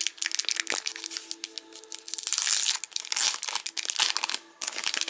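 Plastic hockey-card pack wrapper being crinkled and torn open by hand, a dense run of rustling and crackling that is loudest in the middle, with steady tones holding underneath.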